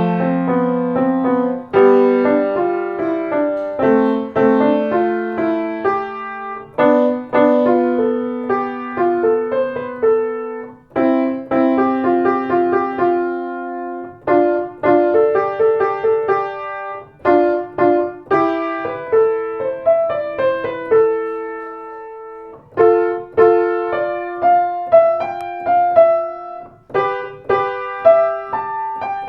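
Solo piano music played on a Blüthner grand piano: a melody over chords, with a held chord fading out about three-quarters of the way through before the playing resumes.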